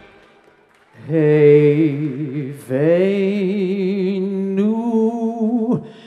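A man singing alone, without accompaniment, in long slow held notes with vibrato. The singing starts about a second in, after a moment of near quiet, and has a brief break partway through.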